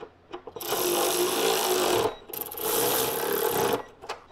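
Cordless ratchet running in two bursts of about a second and a half each, with a short pause between, as it spins a nut down onto the air box stud.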